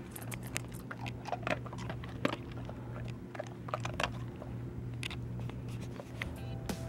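Standard poodle eating dry kibble from a stainless steel bowl: a run of irregular crunches and clicks as he chews.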